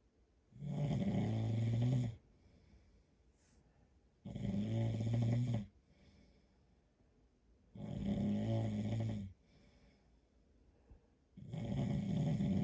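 A man snoring: four long, regular snores, each about a second and a half long and coming about every three and a half seconds.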